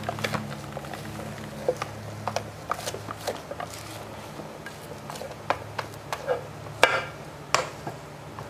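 Scattered clinks and knocks of a glass mixing bowl and rubber spatula against a stainless steel stand-mixer bowl as soft melted marshmallow is scraped out, the loudest knock about seven seconds in, over a steady low hum.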